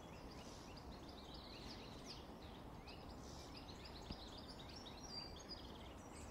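Faint songbirds chirping and twittering, many short high notes overlapping, over a steady low background noise.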